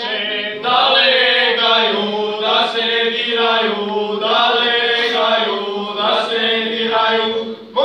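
A Serbian traditional (izvorno) men's singing group singing together, holding long notes over a steady low line, with a short breath pause near the end.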